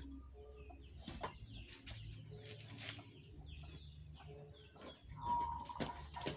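Chickens clucking, with short calls scattered among a few sharp knocks; the loudest call comes about five seconds in.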